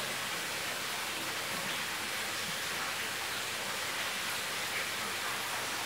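Steady, even hiss of a pancake cooking on low heat in a non-stick frying pan on a gas stove, as bubbles form in the batter before it is flipped.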